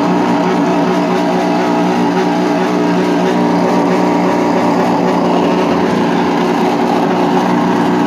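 Steady, loud mechanical drone from a running machine, holding several fixed pitches without rising or falling.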